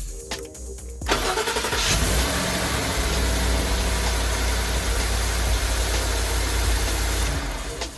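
A 2013 Ford F-150's 5.0 V8 starting on a freshly fitted starter motor: the engine cranks and catches about a second in, runs steadily, then drops away near the end.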